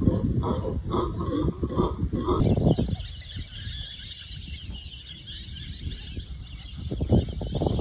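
A pig grunting in a quick, even rhythm for the first couple of seconds. After that a steady high hiss and a low rumble are left.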